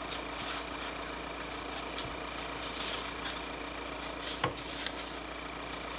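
A vehicle engine idling steadily as a low hum, with a few light clicks and one sharper knock about four and a half seconds in.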